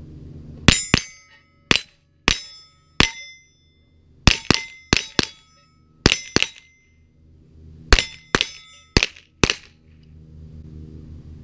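About fifteen rapid shots from an AR-style semi-automatic rifle, in singles and quick pairs over some nine seconds, fired at steel plate targets. Many shots are followed by a brief metallic ring.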